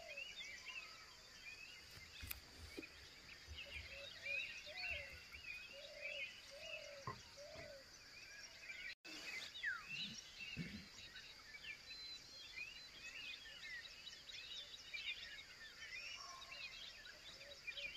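Many small birds chirping and twittering over a steady high hum.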